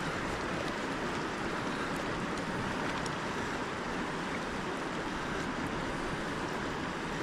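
Steady rush of shallow river water flowing over its bed, with a few faint ticks.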